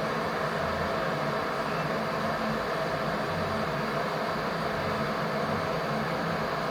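Electric kettle heating water toward the boil, giving a steady hiss with a faint low rumble.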